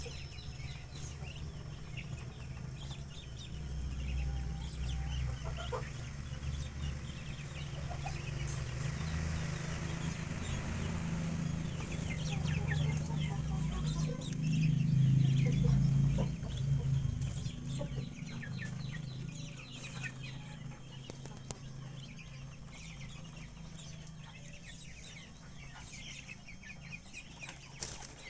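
Backyard chickens clucking, with many short high chirps throughout. A low rumble swells to its loudest around the middle and fades away well before the end.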